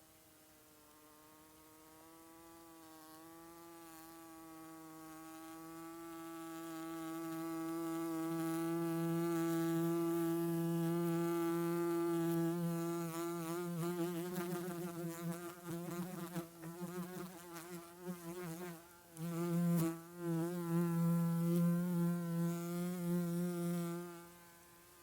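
A bee buzzing in flight: a steady, even-pitched wingbeat hum that grows louder over the first several seconds as it comes close, wavers in the middle with a brief dip, then holds and cuts off suddenly near the end.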